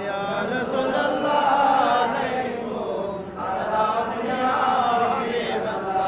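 A man's voice chanting a melodic verse into a microphone, in long held notes that slowly rise and fall, with a short break about three seconds in.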